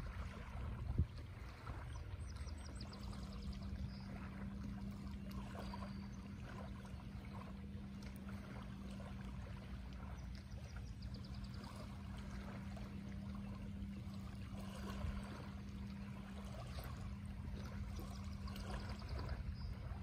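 Small waves lapping on a pebble shore, with a steady low hum running through most of it.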